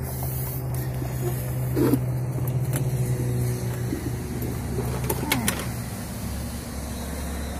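A steady low engine hum, as from an idling vehicle, runs under a few knocks and scrapes as a car battery is lifted out and set down. The sharpest knock comes about two seconds in and another near five seconds.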